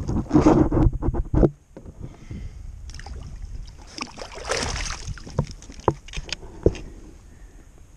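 Handling noises on a fishing kayak: a loud burst of rustling and clatter, then quieter shuffling and a few sharp knocks on the hull.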